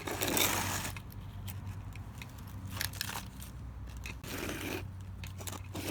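Plastic toy construction trucks scraping and scooping through dirt: one longer scrape at the start, then a few short scuffs, over a steady low hum.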